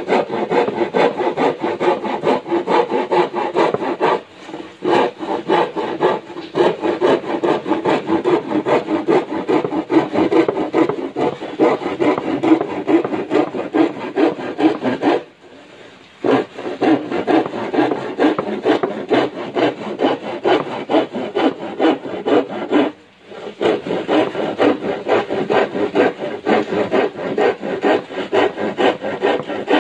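Handsaw ripping a thin wooden board lengthwise, a fast run of back-and-forth rasping strokes. The sawing stops briefly about 4, 15 and 23 seconds in, the longest break near the middle lasting about a second.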